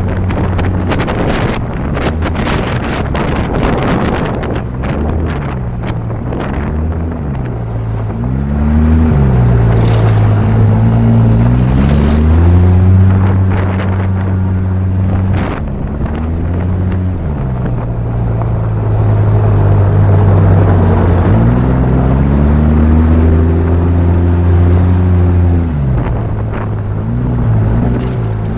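2008 Polaris RZR 800's four-stroke twin-cylinder engine revving up and down while driving, its pitch climbing and then holding steady for several seconds at a time before dropping back. Wind buffets the microphone in the first few seconds.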